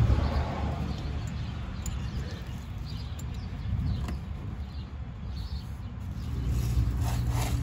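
A few small clicks from a tire plug insertion tool being forced into a car tire's tread, over a low steady outdoor rumble of distant traffic with faint bird chirps.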